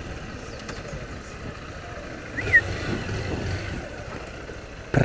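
Honda CG 160 Fan motorcycle's single-cylinder engine idling with a low, steady rumble. A short high chirp comes about halfway through.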